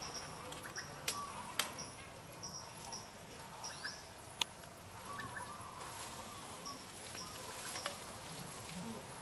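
Outdoor ambience: short high chirps repeating on and off over a steady background hiss, with a few sharp clicks.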